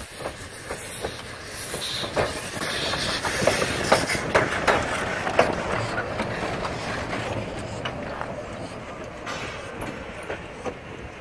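Narrow-gauge steam locomotive U37.002 rolling slowly past at close range: irregular clanks and knocks from its wheels and running gear on the track, over a hiss of steam. It is loudest as it passes about four to six seconds in, then fades as it moves away.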